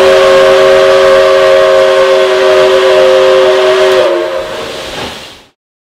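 Pere Marquette 1225's steam whistle, blown by pulling the whistle cord in the cab: one long, steady chord of several tones that sags in pitch as it closes about four seconds in. The locomotive's rumble and hiss carry on under it, then cut off suddenly near the end.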